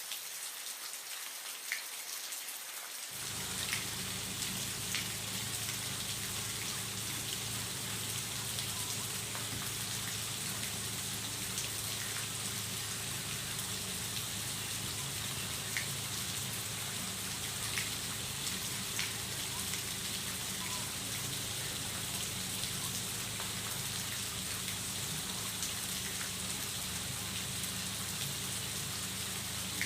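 Aquarium water splashing and trickling steadily, with scattered small drips. A steady low hum, like a filter or air pump motor, joins about three seconds in.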